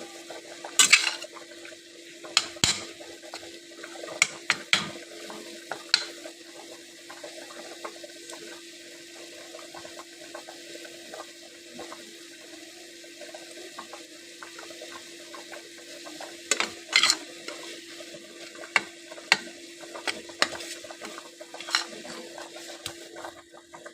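Minced meat sizzling in a pan as it browns, with a spatula scraping and knocking against the pan now and then, over a steady hum.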